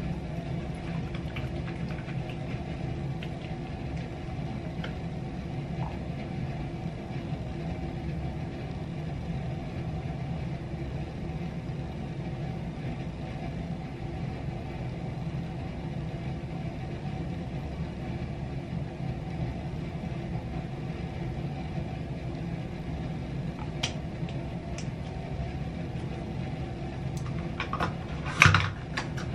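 A steady low mechanical hum runs throughout, with a short louder knock or clatter about a second before the end.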